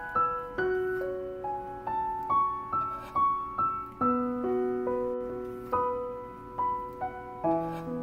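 Background piano music: a gentle melody of single struck notes, about two a second, each ringing on and fading.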